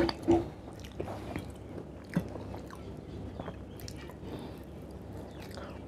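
A person eating chicken curry and rice by hand with his mouth close to the microphone: wet chewing and biting with irregular small clicks. There are a few louder, sharper clicks in the first half second and another about two seconds in.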